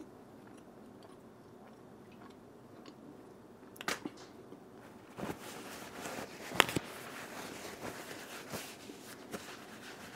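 A person chewing a bite of smoked pork spare rib close to the microphone, with wet mouth clicks. A sharp click comes about four seconds in, and the loudest one just past six seconds.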